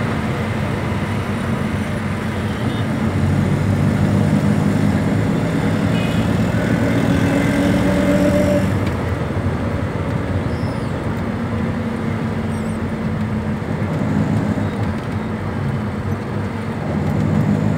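Road traffic heard from inside a moving vehicle: a steady engine hum with road and wind noise. The engine's note climbs over the first few seconds and falls away about halfway through.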